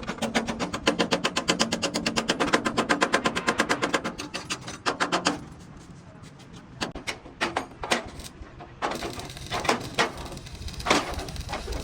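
Hammer striking metal in a fast, even run of blows, about five a second, that stops about five seconds in; single heavier blows follow at irregular gaps.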